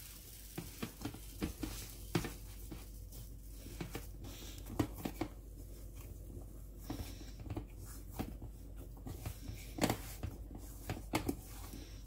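Hands kneading oily roti dough in a glass bowl: irregular soft squishes and taps as the dough is pressed and worked against the bowl.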